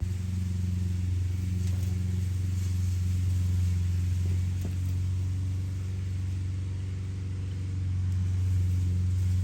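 Steady low mechanical hum holding one even pitch throughout.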